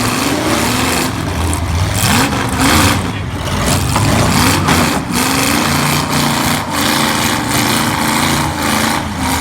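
Demolition derby cars' V8 engines running and revving, their pitch rising and falling, with several sharp knocks among them.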